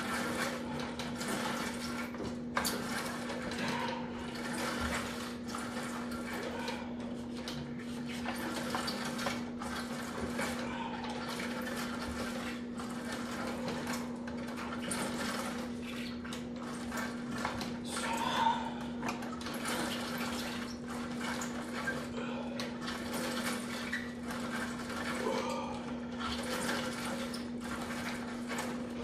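Steady low hum with an even rushing noise over it and a few faint knocks.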